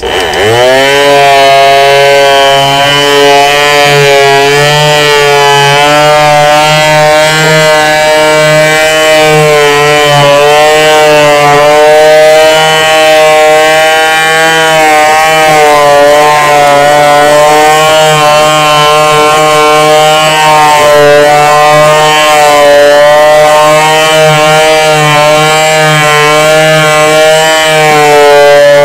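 Yojimbo 300-watt electric finishing palm sander switched on, its motor spinning up in a fraction of a second, then running steadily while sanding a wooden board. Its pitch wavers slightly as it is pushed along the wood.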